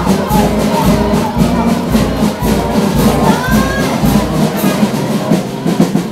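Loud music with a steady pulsing bass beat. The bass drops out about four and a half seconds in, while the rest of the music carries on.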